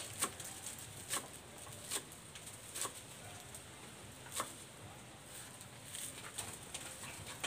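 Kitchen knife chopping leafy greens on a round wooden cutting board: single sharp knocks about once a second, unevenly spaced, fewer and lighter in the last few seconds.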